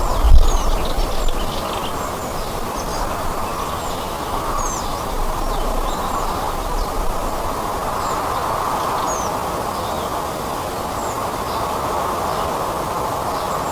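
Small birds chirping, short high calls scattered through, over a steady background hiss in the woods. A brief low rumble at the very start.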